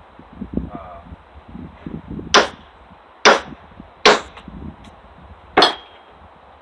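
Hammer striking the back of a small survival multi-tool hatchet to drive it through a log and split it: four sharp metal-on-metal strikes in the second half, the last one ringing briefly. Softer knocks and handling of the wood come before them.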